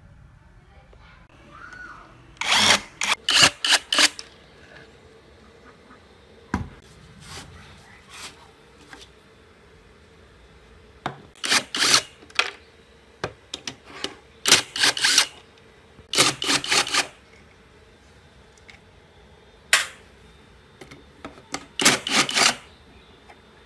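Cordless impact driver hammering on the screws of a pond aerator's plastic float housing, in about six short bursts of rapid impacts with pauses between them.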